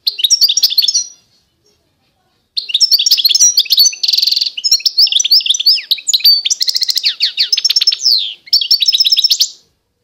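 A small finch singing. A short twittering phrase is followed, after a pause of about a second and a half, by a long song of quick chirps and fast trills. The song includes a held note about four seconds in and runs of rapid descending notes near the end.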